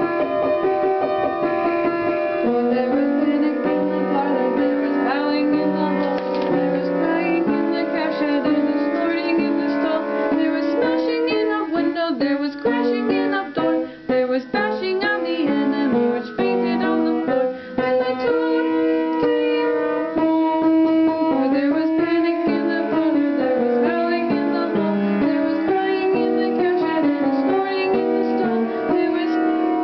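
Music: piano with a melody line that slides in pitch in places.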